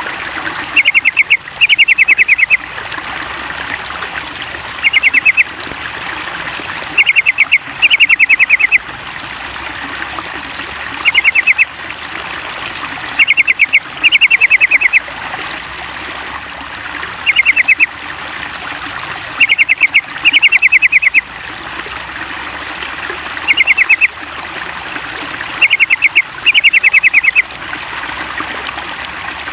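Yellow-vented bulbul calling in short phrases of rapid, evenly spaced notes, often a short phrase followed at once by a longer one, repeating every few seconds as a lure to make a kept bulbul sing. Steady trickling water runs underneath.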